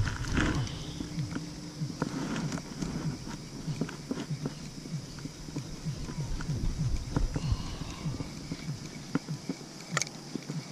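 Spinning reel being cranked to retrieve a cast lure: a run of soft, irregular knocks and clicks, a few a second, with one sharper click near the end.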